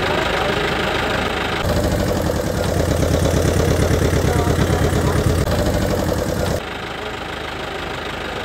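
Vehicle engine sound effect running steadily with a rapid low throb. It jumps abruptly to a louder, deeper engine about a second and a half in and cuts back to the lighter one near six and a half seconds, like separate clips edited together.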